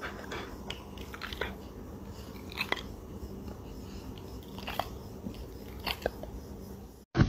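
A Rottweiler's mouth: soft lip smacks and jaw clicks, scattered and often in pairs every second or two.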